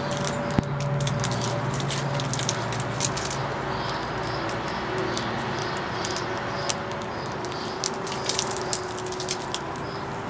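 Painter's tape being picked at and peeled off a foam model airplane fuselage, with scattered short crackling clicks over a steady background hiss.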